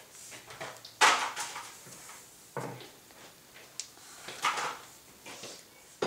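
A handful of separate light knocks and clatters, the loudest about a second in, the kind made by handling things in a kitchen.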